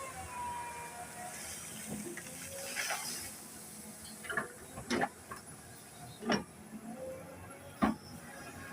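Excavator at work: a steady machine tone with several sharp clanks, about five in a few seconds, from the bucket or tracks.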